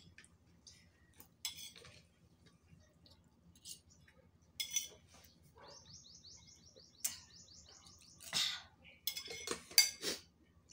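Insulated steel water bottle being handled and drunk from: scattered clicks and clinks of the bottle and its screw lid, with the loudest click near the end. A quick run of short high chirps about six to eight seconds in.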